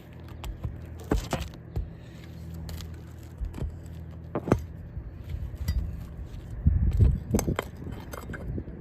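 Metal roofing tool clicking, knocking and scraping against stapled asphalt shingles as a shingle is pried loose: a scatter of sharp clicks, loudest about seven seconds in, over a low hum that fades out about five seconds in.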